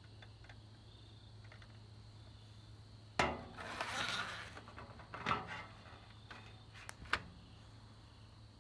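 Handling of a VHS tape and its case: a sharp click about three seconds in, a second of rustling, then a few separate knocks as the case is set down on a wooden surface. A faint steady low hum sits underneath.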